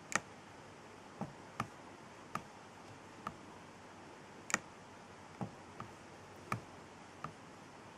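Single sharp clicks from an Acer laptop being worked by hand, about ten of them at uneven intervals, a few close together, over faint background hiss.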